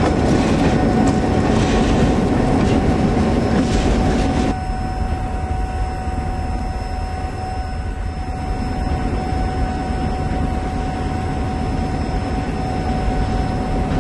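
Freight train rolling, with wheel clatter and clicks over the rails. About four and a half seconds in it cuts abruptly to a quieter, steady diesel locomotive drone with a constant hum.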